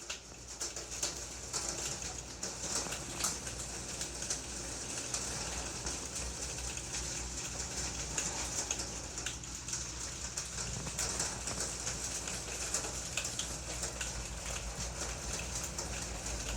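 Steady outdoor hiss of water, with scattered faint ticks.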